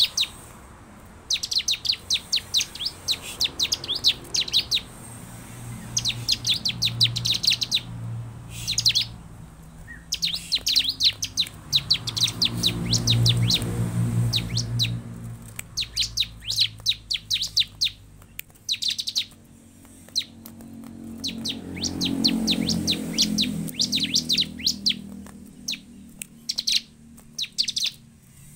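Bar-winged prinia (ciblek) singing: fast trilled bursts of high, sharp chirps, each a second or two long, repeated with short gaps. A low rumble swells and fades twice in the background.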